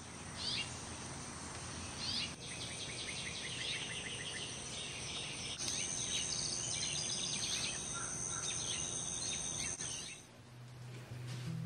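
Outdoor summer ambience: birds chirping over a steady high insect drone. It fades out about ten seconds in.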